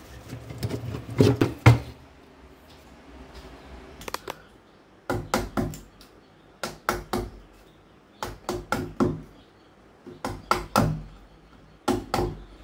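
Hammer blows on a door being repaired because it sticks when opened, in quick bursts of two to five knocks, a burst every second or two.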